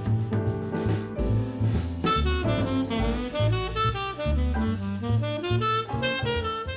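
Background music: a jazzy tune with saxophone-like melody over bass and drums.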